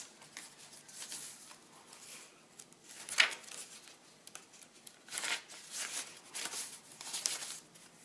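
Paper and card rustling and sliding as cards are handled in a pocket and pages of a handmade paper journal are turned, with a sharper paper rustle about three seconds in and a run of rustles in the second half.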